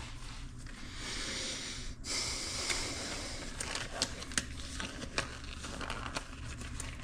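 Disposable gloves being pulled on: rustling and crinkling, then scattered small snaps and clicks.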